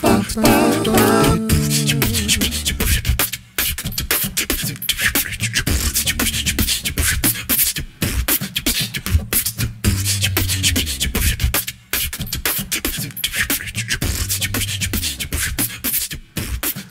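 Beatbox music: rapid vocal percussion clicks and hisses over a low bass line, with a wavering vocal melody in the first second or so and short breaks every few seconds.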